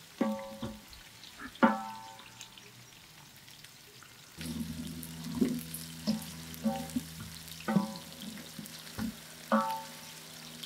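A wooden spoon stirs sliced onions in hot oil in a large aluminium pot, knocking against the metal about every second with short ringing clanks over a faint sizzle. About four seconds in, a steady low hum joins.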